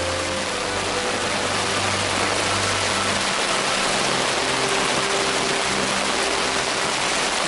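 Steady rushing water, a loud even hiss, with soft background music notes held faintly underneath.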